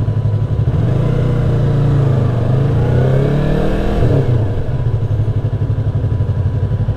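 Motorcycle engine running under way, with wind noise. The revs climb for about three seconds and then drop sharply about four seconds in.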